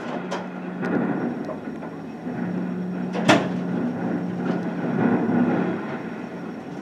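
Excavator running with a steady engine hum as its toothed bucket tears into a brick building, with scattered cracks and crashes of breaking masonry and debris, the loudest about three seconds in.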